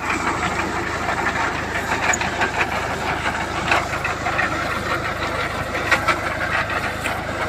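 A 40 hp tractor's engine running steadily, with a rattling clatter over it and a few sharp knocks.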